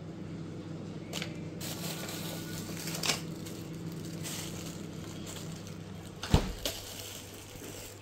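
Plastic food packets rustling and clicking as they are handled on an open refrigerator's door shelves, over a steady low hum. A single loud thump about six seconds in, as the fridge door shuts.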